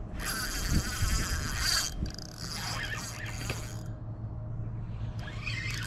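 Spinning reel working a hooked fish, its gears whirring and clicking in two loud spells over the first four seconds, with a shorter rattle near the end.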